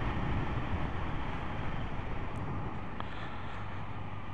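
Motorcycle engine running under way with steady wind and road noise, heard from the rider's position, easing gradually quieter as the bike slows and changes down towards a junction.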